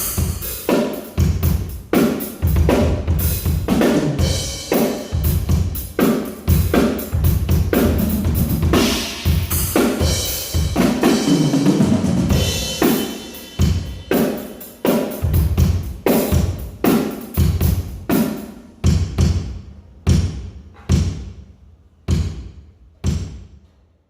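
Drum kit played in a sound check: busy grooves and fills of kick drum, snare and cymbals. About two thirds of the way through it thins to single hits roughly once a second that grow steadily quieter and fade out near the end.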